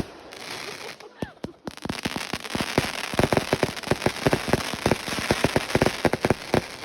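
A 180-shot, 0.8-inch consumer fireworks cake firing: a string of sharp bangs over a crackling hiss, sparse at first and then several a second from about two seconds in.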